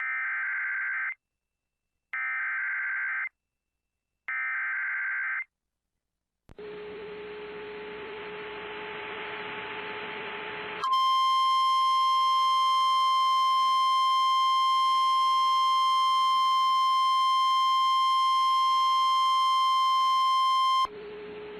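NOAA Weather Radio Emergency Alert System signal: three short warbling SAME data bursts of the alert header, a few seconds of radio static with a low hum, then the 1050 Hz warning alarm tone held steady for about ten seconds, the loudest part, before the static returns.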